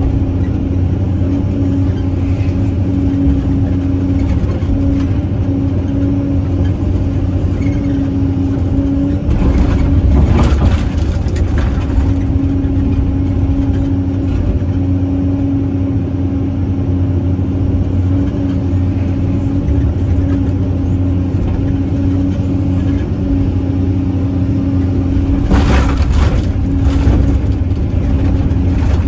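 CAT 320C excavator's six-cylinder diesel engine running steadily under load, with a steady hydraulic pump whine on top, heard from inside the cab as the machine swings and digs. Two louder rushing bursts come about ten seconds in and again near the end.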